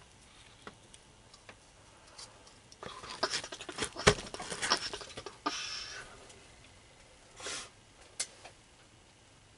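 Close handling noises: scattered clicks, rustles and crackles, thickest in the middle, with one sharp knock about four seconds in and short hissing bursts just before six seconds and again near seven and a half seconds.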